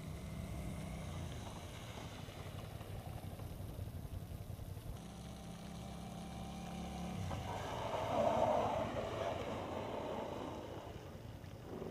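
Sport motorcycle running across wet pavement, its engine a steady low hum. About seven seconds in the hum drops away and a louder rush of water spray from the tyres swells as the bike passes close.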